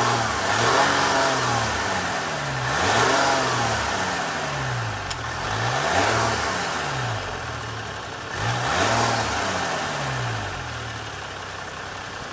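2017 Ram 1500 EcoDiesel's 3.0-liter turbo-diesel V6 revved in place: four throttle blips about three seconds apart, each rising and falling in pitch, then settling to a steady idle near the end.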